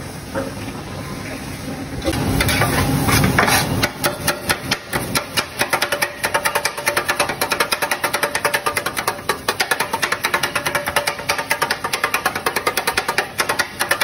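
Kottu roti being chopped on a metal griddle: a pair of metal blades striking the griddle in a fast, steady clatter of several strokes a second, getting going a few seconds in.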